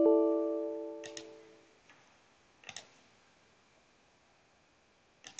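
Windows error chime sounding as an error dialog pops up, a bell-like note that fades away over about two seconds. A few sharp mouse clicks follow about a second in, near three seconds and near the end.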